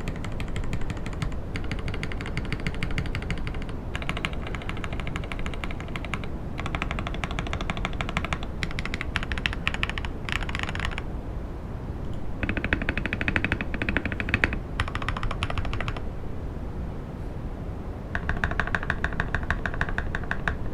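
Typing on a modded Akko ACR67 gasket-mount mechanical keyboard with an acrylic case and FR4 plate: quick runs of keystrokes with short pauses between them.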